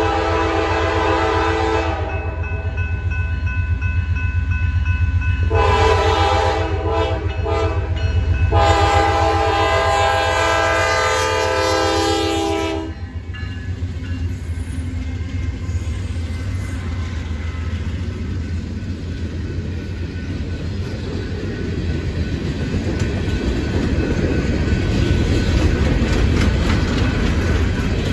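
Norfolk Southern diesel freight locomotive blowing its multi-note air horn for a grade crossing: one blast at the start, then two more between about 5 and 13 seconds, the last held about four seconds. Under the horn the locomotives' diesel engines rumble, and after it the train's freight cars roll past with clattering wheels.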